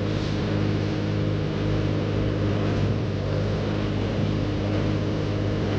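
Mini excavator's diesel engine running at a steady speed, a constant low hum with no change in pitch.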